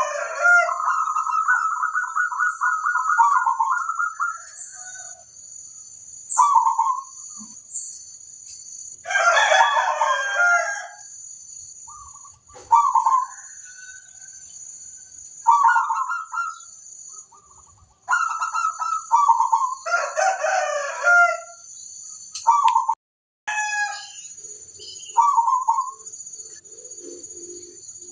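Zebra doves (perkutut) cooing: repeated short phrases of quick staccato notes, with birds answering one another. A steady high-pitched hiss runs underneath.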